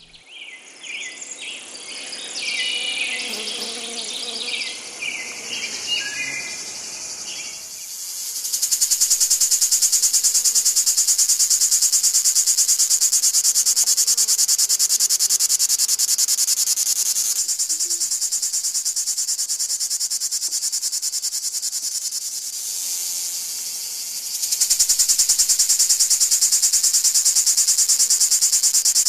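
Grasshopper stridulating: a loud, high-pitched, fast-pulsing chirr that comes in about eight seconds in and runs on, easing off for a while in the middle. It is preceded by a few seconds of short bird-like chirps.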